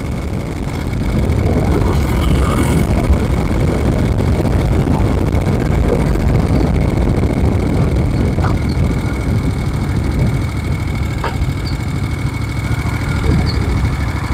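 Moto Guzzi Eldorado's V-twin engine, bored out to about 1000cc, running smoothly and steadily, getting louder about a second in.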